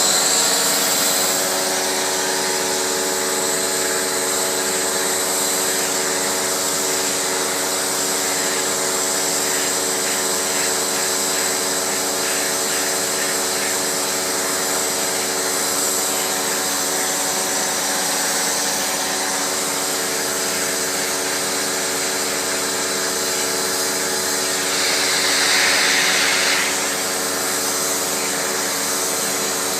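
Household vacuum cleaner running steadily, a motor whine over a rush of air. About 25 seconds in the hiss grows brighter and louder for a couple of seconds, then settles back.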